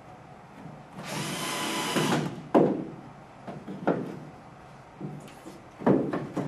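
A cordless drill runs for about a second, driving a screw into the wooden log frame, and stops. A sharp knock follows just after, then a few lighter knocks as the drill is set down and the frame is handled.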